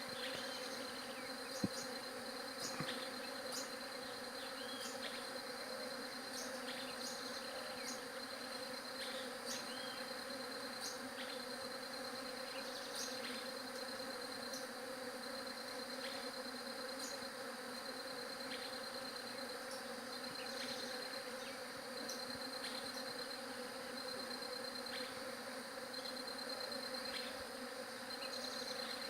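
Many bees buzzing together in a steady, unbroken hum. A rapid pulsing trill from another insect comes and goes in short runs above it, with scattered brief high chirps.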